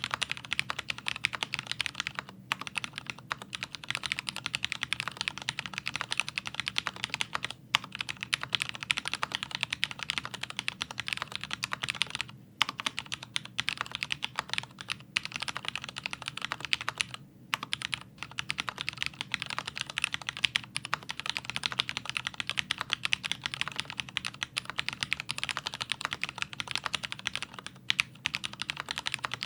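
Fast, continuous typing on a Leopold FC650MDS mechanical keyboard with Cherry MX Speed Silver linear switches, lubed with Krytox. The rapid key clicks break off in short pauses every few seconds.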